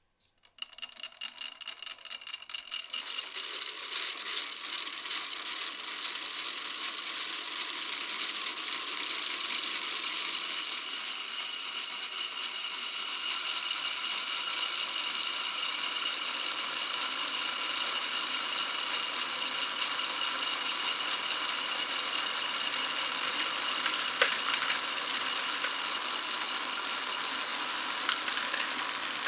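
Many marbles rolling and clattering continuously along a marble run's tracks, a dense steady rattle of small clicks.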